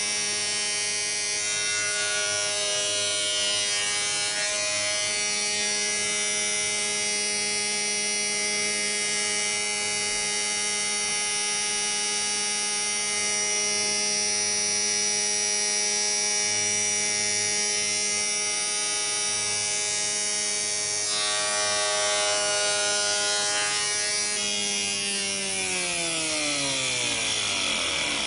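Spindle moulder (wood shaper) with a stacked box-combing cutter set running at speed, a steady whine. Near the end it is switched off and runs down, its pitch falling away.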